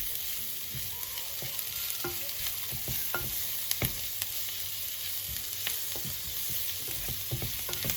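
Chunks of chicken frying in a little oil with shallots and chilli in a hot pan, a steady sizzle as they brown over raised heat. Scattered clicks and knocks of a utensil stirring against the pan.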